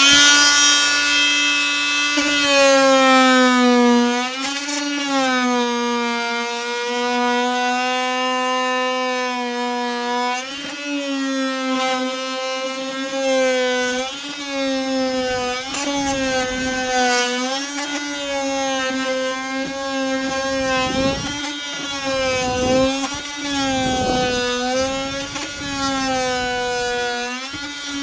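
Fein FMM250Q oscillating multi-tool switched on and running with a loud, steady buzz whose pitch dips and wavers as the blade is pressed into thick old undercoating. From about halfway in, rough scraping from the blade cutting the coating rises and falls over the buzz.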